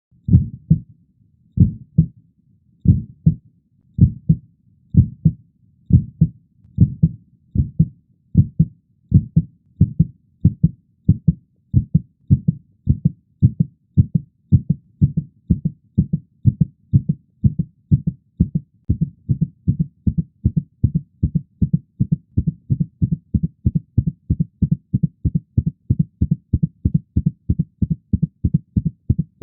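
Heartbeat sound effect: low beats that speed up steadily, from a slow rate of under one a second to more than twice that, like a racing pulse.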